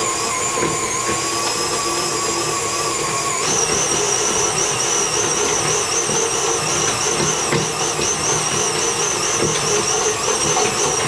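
Electric stand mixer running steadily with a motor whine as it kneads bread dough; the whine steps up in pitch about three and a half seconds in.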